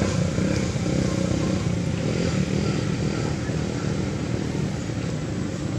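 A motor vehicle engine running steadily nearby, a low rumble.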